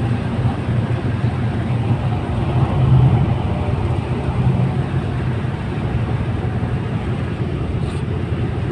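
Tugboat engine running steadily, a continuous low drone that swells slightly about three seconds in.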